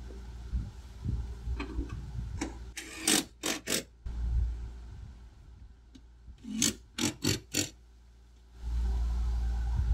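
Cordless power driver spun in two groups of short trigger bursts, three and then four quick spurts, at a trailer's scissor stabilizer jack, with a few small knocks before. A steady low rumble starts near the end.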